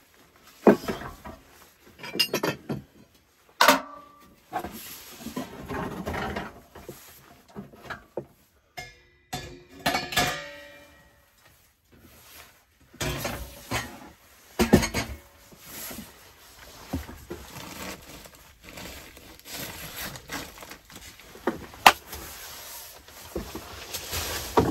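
Irregular metal clanks, scrapes and clinks as a small black steel stove and stainless-steel chimney pipe sections are handled and fitted together, with a brief metallic ringing midway and one sharp ringing clink near the end.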